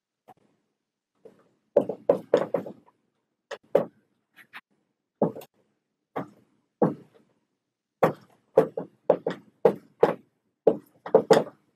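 Dry-erase marker writing on a whiteboard: irregular clusters of short taps and strokes as the tip strikes and drags across the board.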